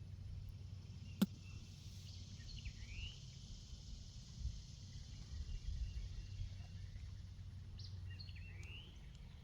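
Birds chirping now and then, short rising calls, over a steady low rumble, with one sharp click about a second in.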